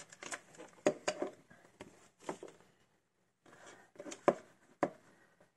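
A plastic over-ear headset and its cords handled on a tabletop: scattered clicks, light knocks and rustling, with the sharpest knocks about a second in and twice near the end.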